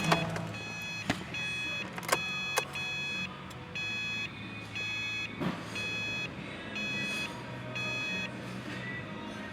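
A car's interior warning chime sounding about once a second, over the low steady hum of the engine idling, with a few sharp clicks about one, two and five seconds in.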